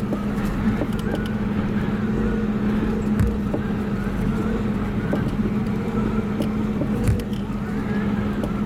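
Vehicle engine and road noise heard from inside the cabin while driving: a steady hum with a few short knocks and rattles from bumps in the road.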